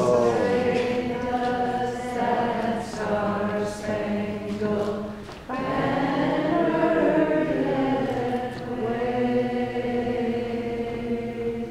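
Choral singing with long held notes, and a new, louder phrase coming in suddenly about five and a half seconds in.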